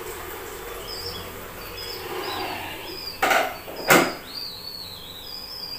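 Small birds chirping over and over in short high calls, with two brief kitchen clatters a little past the middle, the second a sharp knock of the kind a vessel makes when set down on the counter.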